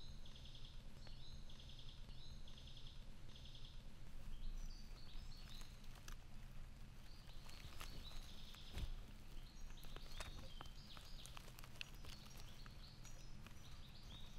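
Faint birdsong from several birds. In the first few seconds one repeats a short trilled phrase about once a second, and varied chirps follow. A steady low hum runs underneath, with a few light clicks and rustles.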